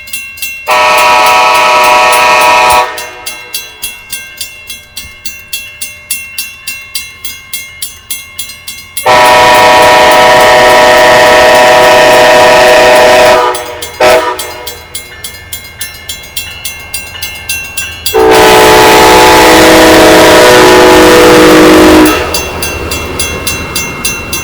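Siemens Charger passenger locomotive sounding its horn for a grade crossing: long, long, short, long, with the last long blast lower in pitch. Between the blasts a railroad crossing bell rings steadily about twice a second.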